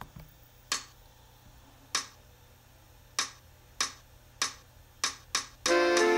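A tempo count-in of sharp clicks: three slow ones, then three about twice as fast and a last quick one. Then the band's playback track comes in loudly near the end with many instruments at once.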